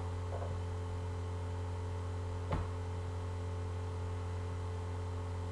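Steady low electrical hum in the recording, with one faint click about two and a half seconds in.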